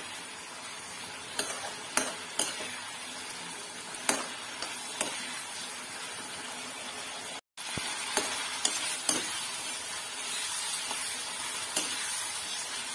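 Green chillies frying in mustard oil and yogurt in a kadhai, sizzling steadily, while a spatula stirs them, clicking and scraping against the pan every second or so. The stirring is kept up without pause so the yogurt doesn't curdle. The sound cuts out for an instant a little past halfway.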